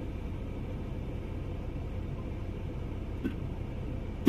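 Steady low rumble of outdoor background noise, with a faint click a little past three seconds in and a sharp knock at the very end.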